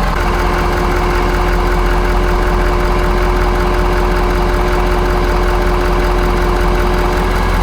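2019 Ford F-250 Super Duty's engine idling steadily, with a steady whine held over the idle.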